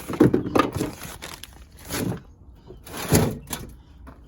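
Knocks and clattering thumps of old junk being moved and handled: a cluster in the first second, another about two seconds in, and the loudest just after three seconds.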